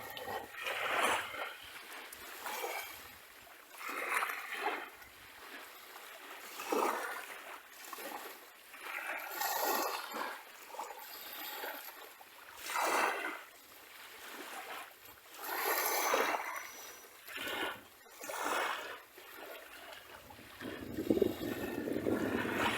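Small sea waves washing onto a beach, a splashing rush every two to three seconds, with a heavier, deeper wash near the end.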